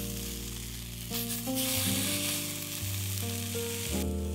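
Skewered sausages sizzling in a hot frying pan as they are turned, a steady frying hiss that dies down near the end. Background music with sustained notes plays underneath.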